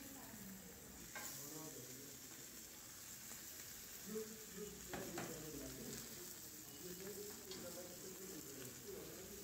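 Faint sizzling of chicken and vegetables frying on a hot ridged grill pan, with a few sharp clicks and knocks of metal tongs and vegetables landing on the pan, the clearest about a second in and about five seconds in.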